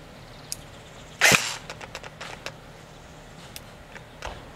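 Tokyo Marui MP5 airsoft electric gun firing one short burst about a second in, followed by a few faint clicks. The gearbox is failing here, which the owner takes for a shredded piston or something else locked up inside the gearbox.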